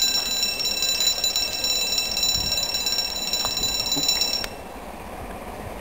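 Level crossing warning alarm sounding as a steady, high, multi-toned electronic tone, which cuts off suddenly about four and a half seconds in.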